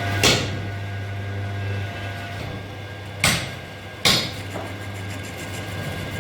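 Three sharp hammer blows on metal, the first about a quarter second in and two more a little after three and four seconds, over a steady low machine hum.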